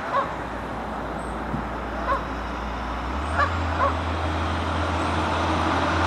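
Four short honks from Canada geese over a steady low rumble of road traffic, which grows louder a little past halfway.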